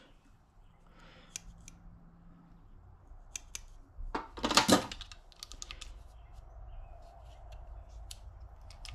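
Metal hand tools, snips and wire strippers, clicking and clattering as they are handled in a toolbox drawer. There are scattered light clicks, with a louder run of clatter about four to five seconds in.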